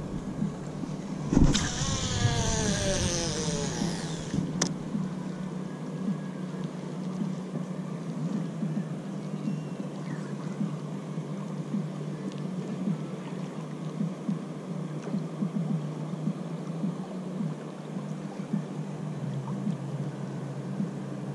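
Boat outboard motor running steadily at low speed, a constant low hum that drops slightly in pitch near the end. About a second and a half in, a knock is followed by a couple of seconds of louder rushing noise with a falling whine.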